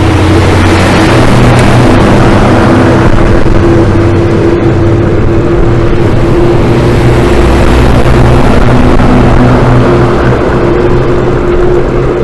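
Motorcycle engine running at a steady speed under way, a constant droning hum with rushing wind noise over it.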